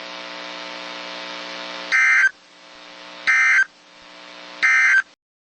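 Three short screeching digital data bursts about a second apart: the EAS/SAME End Of Message code that closes an emergency alert test. A steady electrical hum runs underneath before the first burst.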